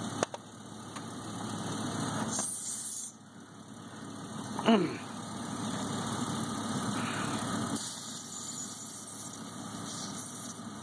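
Air hissing briefly from a car tire's valve stem, about two and a half seconds in, as the compressor hose is taken off, over a steady low hum. A single falling squeal follows a couple of seconds later.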